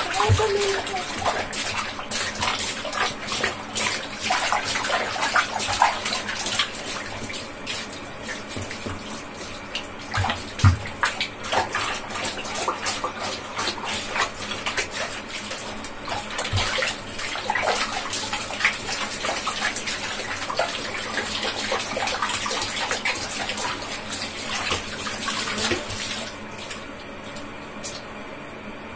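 Bathwater splashing and sloshing in a plastic tub as hands scoop water over a cat, in many irregular splashes that die down near the end.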